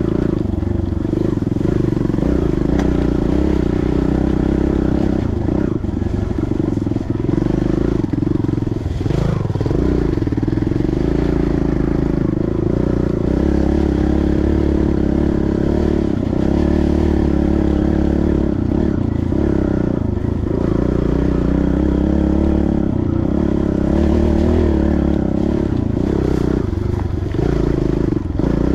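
Dirt bike engine running steadily, with a few brief dips in level.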